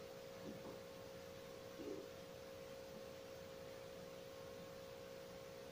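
Near-quiet room tone with a faint steady electrical hum at one pitch, and two faint, brief soft sounds in the first two seconds.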